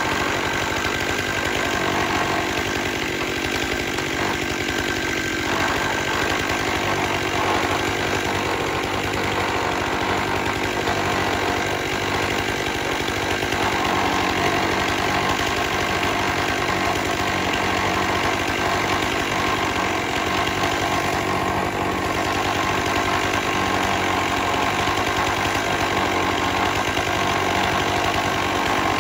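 Stihl MS 661 two-stroke chainsaw engine running steadily on a Logosol F2 Plus chainsaw mill, at an even level with no breaks.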